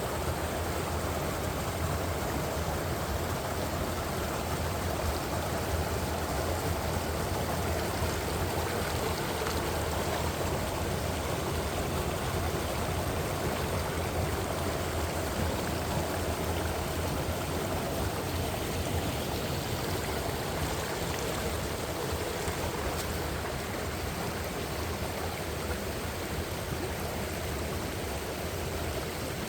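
Mountain stream rushing over rocks, a steady even rush of water.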